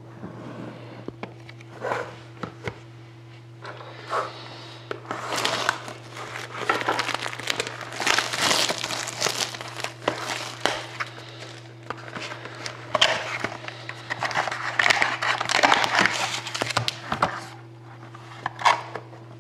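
Plastic shrink-wrap crinkling and rustling as a sealed box of Panini Crown Royale hockey cards is unwrapped and opened by hand. A few scattered crackles at first, then dense crinkling through the middle that thins out near the end, over a steady low hum.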